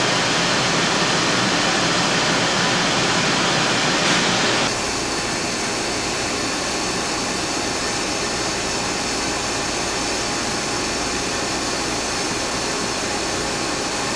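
Steady rushing air noise from the cooling blowers and fans of a Harris Sigma UHF television transmitter. It drops abruptly to a slightly lower level about five seconds in.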